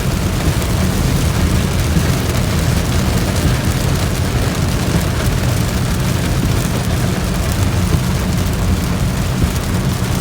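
Heavy storm rain hitting the roof and windshield of a moving car, mixed with a steady low rumble of road and engine noise, heard from inside the cabin.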